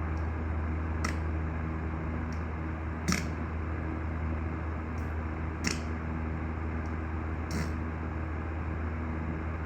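A steady low hum, with a handful of short, sharp clicks scattered through it.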